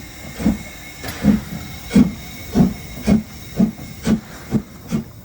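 Narrow-gauge steam locomotive chuffing as it pulls away: a run of exhaust beats, each with a hiss of steam, that come closer together as the engine picks up speed.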